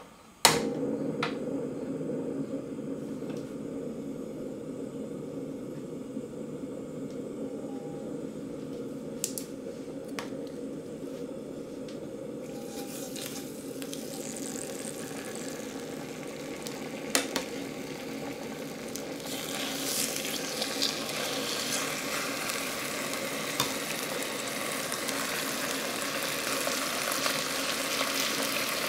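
A portable gas stove clicks alight and burns with a steady low rush. From about twelve seconds in, seasoned chicken thighs laid into hot oil in an enamelled cast-iron pot start to sizzle, the frying growing louder toward the end, with a few clicks of metal tongs.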